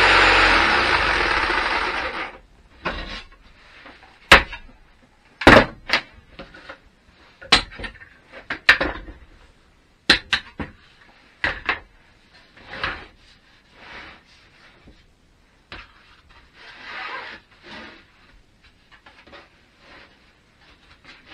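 Jigsaw cutting through a clamped sheet of board, then switched off about two seconds in and running down. After it come a run of sharp knocks and clatters, several as loud as the saw, as quick-release bar clamps are undone and the board and clamps are moved about on the workbench.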